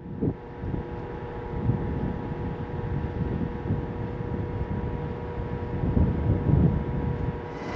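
Wind buffeting the microphone in an uneven low rumble, over a faint steady machine hum.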